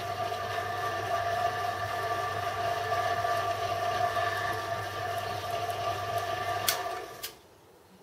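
Home-built Gingery milling machine running under power: its electric motor and V-belt pulley drive give a steady hum with a whine. It stops about seven seconds in, with a couple of clicks.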